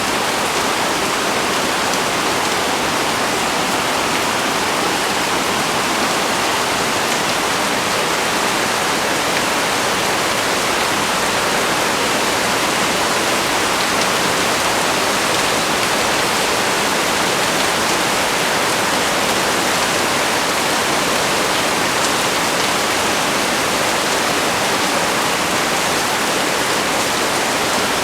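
Heavy rain pouring down in a dense, steady hiss, with no let-up and no separate drops standing out.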